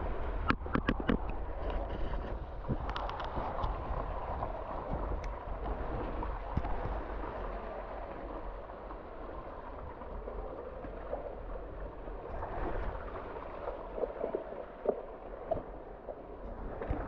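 Hot-spring water running and splashing down a narrow rock channel, close to the microphone, with a low rumble underneath. Several sharp knocks come in the first few seconds.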